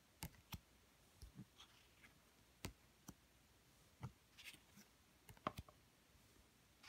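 Tarot cards being handled in a flip through: faint, irregular clicks and light taps as cards are slid off the deck and shifted by hand, about a dozen over several seconds.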